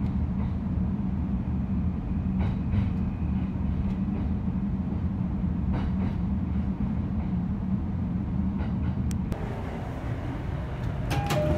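Running noise of a JR East E531-series electric train heard from a lower-deck seat as it pulls out: a steady low rumble with occasional faint clicks from the track. About nine seconds in the sound changes abruptly to quieter station ambience, and near the end a few short electronic tones sound.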